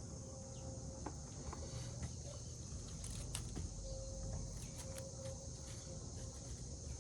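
Insects chirring steadily in a high, even drone, with a few faint clicks and a low background rumble.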